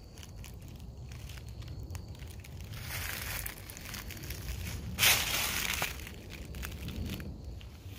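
Footsteps crunching and rustling on a forest trail: irregular small crackles, with a louder crunch about five seconds in.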